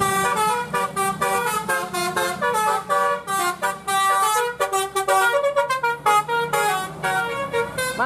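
Bus telolet horn of the Basuri type playing a fast melody: a quick run of short, changing horn notes without a break.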